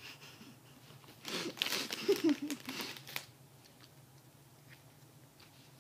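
Plastic bag crinkling and rustling as a marshmallow is taken out, starting about a second in and lasting about two seconds, with a short muffled voice sound through a mouth stuffed with marshmallows in the middle of it. A few faint clicks follow.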